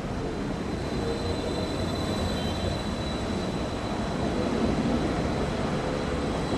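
Danhai Light Rail tram running along an elevated viaduct: a steady rumble of wheels on rail that grows a little louder as it passes, with a faint thin high tone above it.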